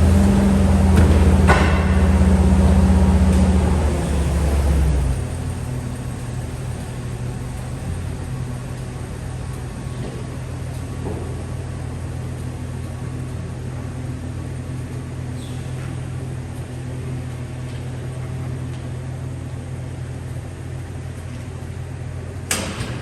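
A motorised lift running with a loud steady hum that drops to a quieter steady hum about five seconds in. A sharp click about a second and a half in.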